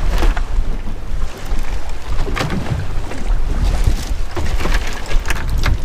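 Wind buffeting the microphone in a steady low rumble on a small open boat at sea, with a few sharp crinkles and knocks as a plastic bag holding a fish is handled.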